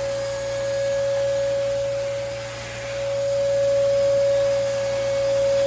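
Hoover Commercial PortaPower canister vacuum running on a couch, its motor giving a steady high whine over a low hum, the level slowly swelling and dipping as the nozzle works over the upholstery.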